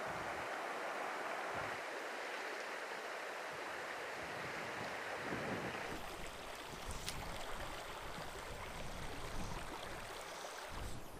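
Shallow creek water rushing steadily over a gravel bed. About six seconds in the sound changes to gusty low wind rumble on the microphone, with fainter water behind it.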